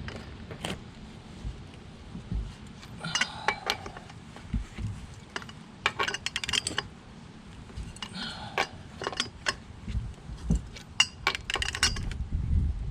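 Socket, breaker bar and cheater pipe clinking and scraping on a car wheel's lug nuts as they are loosened: scattered metallic clinks, with a couple of short clattering runs.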